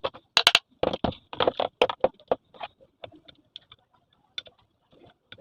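Sharp metal clicks and knocks from screws being tightened on a reassembled ceiling fan's body: several in quick succession, then sparser, fainter ticks from about three seconds in.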